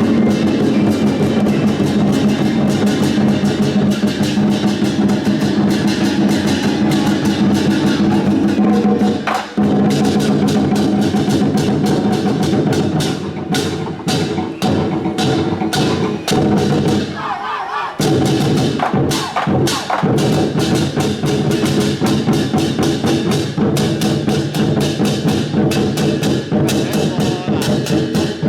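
Loud music with drums and dense rapid percussion, its beat and sustained tones running throughout, with a brief break about two thirds of the way in.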